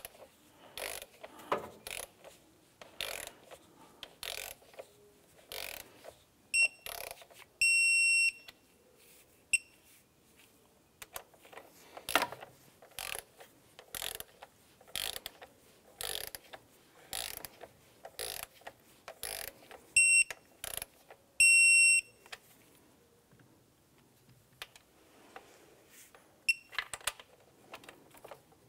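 Digital torque wrench ratcheting in short strokes as valve cover bolts are tightened. Twice its electronic beeper sounds, short beeps and then a long steady beep, the signal that the bolt has reached the set torque of 7.2 foot-pounds.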